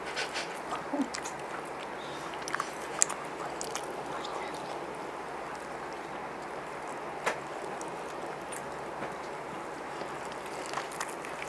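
Eating sounds: people chewing chicken biryani and working the rice by hand, with scattered small clicks and mouth smacks over a steady background hiss.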